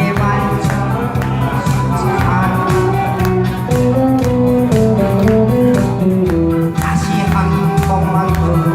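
Upbeat disco-style backing music in an instrumental passage: a steady beat and bass line under a stepping melody line.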